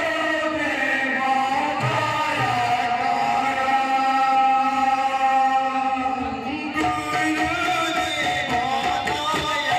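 Devotional kirtan singing: voices holding long, drawn-out sung notes, with a few low drum strokes under them about two seconds in.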